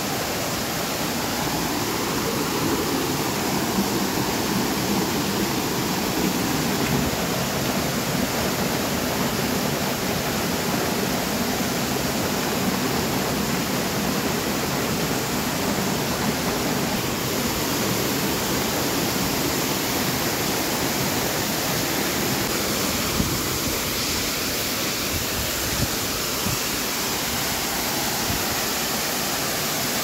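Steady rush of water from a small waterfall and a stream tumbling among rocks.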